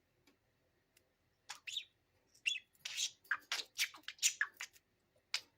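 Pet parakeet chirping: a couple of short chirps, then a quick run of chirps, and one last chirp near the end.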